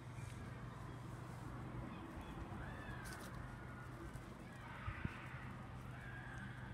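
Faint short animal calls, a few of them, over a steady low hum, with a couple of light knocks about five seconds in.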